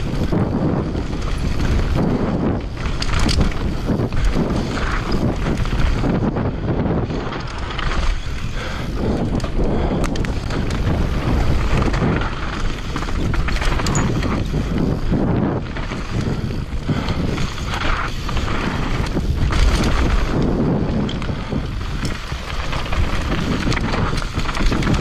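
Mountain bike descending a rough trail: tyre noise over rock and dirt, with frequent knocks and rattles from the bike on the bumps, and wind noise on the camera microphone.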